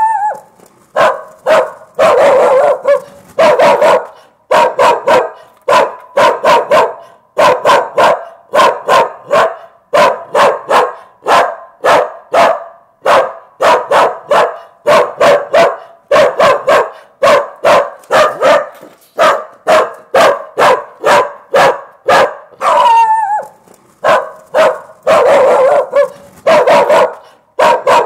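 A dog barking loudly in runs of short barks, two to four at a time with brief pauses between runs, and now and then a longer drawn-out bark.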